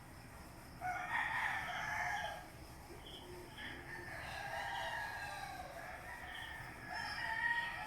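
Roosters crowing, one crow after another with some overlapping, about a second in, again in the middle and again near the end, over faint repeated high chirps.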